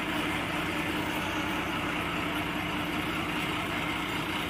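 Bus engine running with a steady, even hum.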